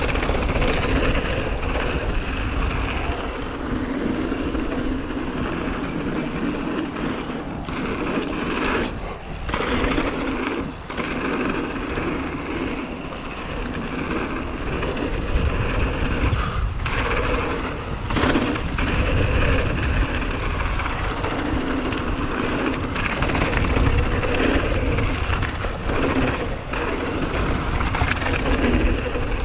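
Hardtail mountain bike's tyres rolling fast over a hard-packed dirt and gravel trail, with the bike rattling over the bumps and wind buffeting the camera's microphone in a steady roar.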